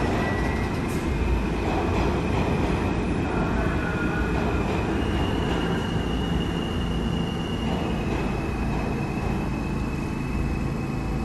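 New York City subway train (R46 cars) moving slowly through the station, a continuous rumble with a thin high wheel squeal held over it for several seconds.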